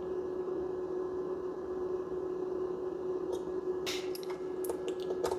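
A steady hum, with a quick string of six or seven small sharp clicks and taps from hands working at the oscilloscope's probes and controls, starting about four seconds in.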